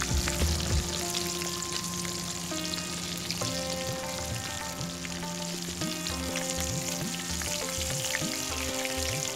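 Hot oil sizzling and crackling steadily around a whole masala-coated fish frying in a steel pan, with background music playing underneath.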